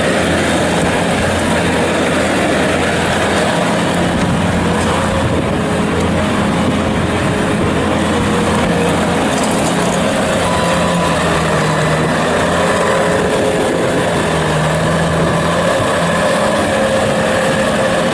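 Bobcat T650 track skid steer's diesel engine running steadily at working speed, its pitch shifting a little as the machine is operated.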